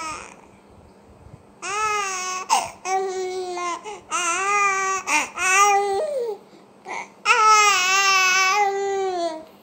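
A baby vocalizing in a sing-song way, a series of about five long, held, wavering vocal notes with short pauses between them, the longest near the end.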